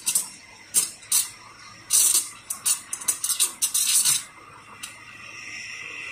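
Espresso machine steam wand frothing milk in a stainless steel pitcher: irregular bursts of sputtering hiss as the tip draws air into the milk, then, about four and a half seconds in, a steady high-pitched whine that slowly grows louder as the tip sinks and the milk swirls and heats.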